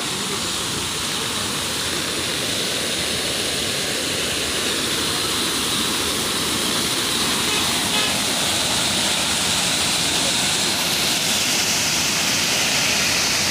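Waterfall cascading over rocks close by: a steady rush of falling water that grows slightly louder toward the end.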